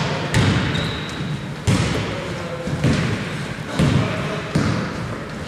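Basketball being dribbled on an indoor court, about five bounces roughly a second apart, with a brief high squeak about a second in. Players' voices carry in the hall.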